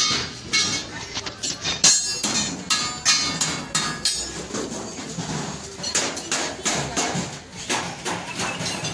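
Hammers striking sheet metal, irregular sharp blows about two or three a second.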